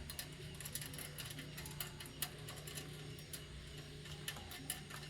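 Scattered light clicks and taps at irregular intervals, typical of small parts and tools being handled, over a steady low hum.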